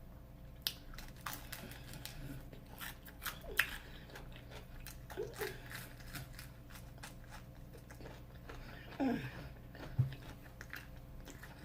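Close-up crunching and chewing of Flamin' Hot Cheeto-crusted fried giant shrimp, with crisp bites through the first few seconds. A short falling vocal sound from the eater comes about nine seconds in.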